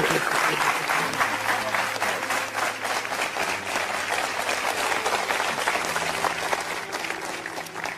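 Studio audience applauding, a steady crowd clapping that fades away near the end.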